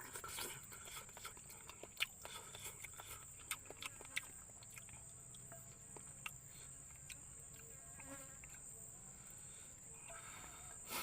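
Insects calling in a steady high-pitched drone, with scattered small clicks and taps over it.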